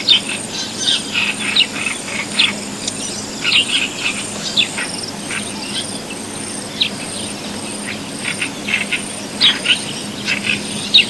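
Wild birds giving short, high chirping calls in quick clusters, over an insect trilling in a steady, regular pulse.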